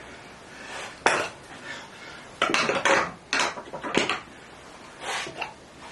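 Metal hand tools clinking and knocking against wood: a run of about seven sharp, irregularly spaced clatters.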